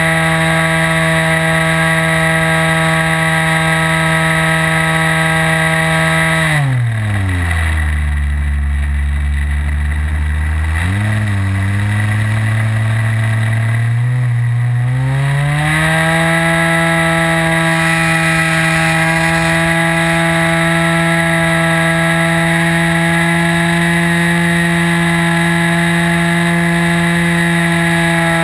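OS 55 AX two-stroke glow engine and propeller of an RC model aircraft, heard from on board, running at high throttle. About six and a half seconds in it is throttled back to a low idle, blipped briefly, then opened up again around sixteen seconds in and held at a steady high pitch.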